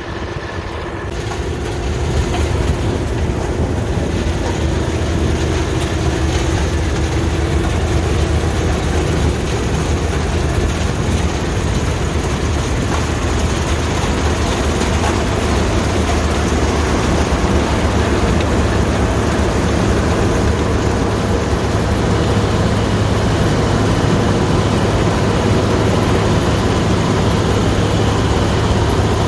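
Combine harvester running at work, a loud, steady low engine drone with dense machine noise over it, building up over the first couple of seconds and then holding level.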